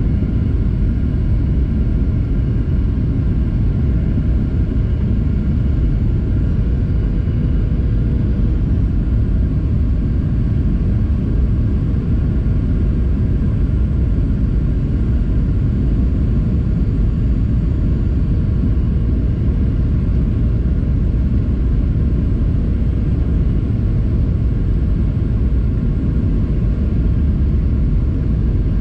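Airliner cabin noise on approach: a steady low rumble of the jet engines and airflow heard from inside the cabin, with a faint steady engine hum above it.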